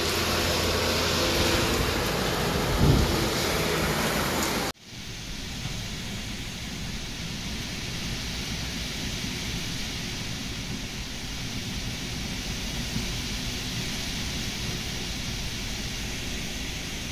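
Heavy cyclone rain pouring steadily, with a brief thump about three seconds in. After a sudden cut, strong cyclone wind blows instead, rumbling on the microphone.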